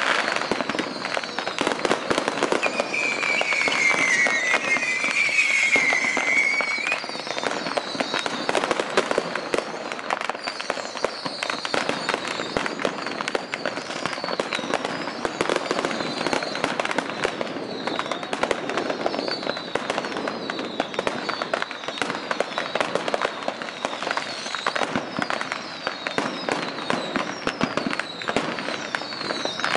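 Long strings of firecrackers on the festival fishing boats going off in a continuous rapid crackle of bangs across the harbour. A wavering whistle sounds over it a few seconds in.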